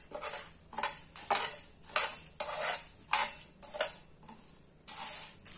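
Metal slotted spoon scraping and stirring whole spices and dried chillies as they dry-roast on a flat iron tawa: quick scraping strokes with the seeds rattling, about two a second. The strokes grow quieter for a moment about four seconds in.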